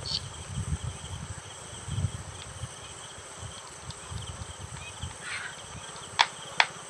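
Crickets trilling steadily in the background, with low handling noise and two sharp clicks near the end as a screwdriver works the screws of the pump's plastic terminal box cover.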